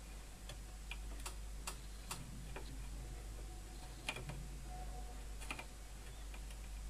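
Faint, irregular small clicks and ticks as a soldering iron tip and wire leads are worked against a circuit board while a transformer terminal is soldered, over a low steady hum.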